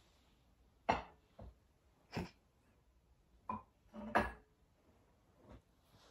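Glass candle jars and a wooden candle lid knocking and clinking as they are handled, picked up and set down: about six short, irregularly spaced knocks.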